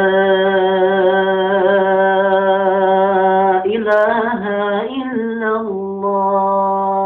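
A man's voice chanting the adhan, the Islamic call to prayer, unaccompanied: a long held note with a melodic turn about four seconds in, then held again, as in the closing phrase of the call.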